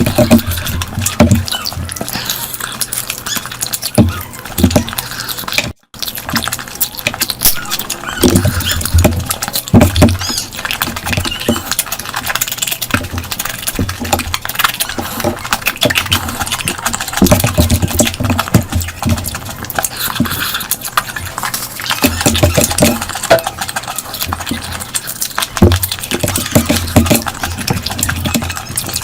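Close-miked eating sounds: continuous chewing and wet mouth smacking on curry-soaked food, with frequent small clicks and heavier low chomps coming and going.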